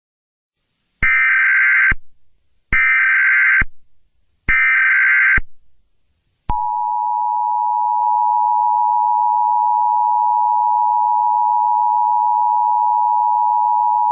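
Emergency Alert System SAME header: three bursts of screechy digital data tones, about a second each with short gaps. After that, about halfway through, the steady two-tone EAS attention signal begins, the tone that announces an emergency alert.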